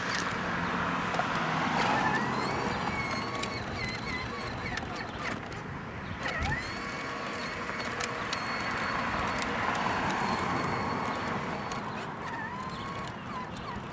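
Traffic on a nearby road, with cars swelling past twice, about two seconds in and again near ten seconds, under short chirping bird calls.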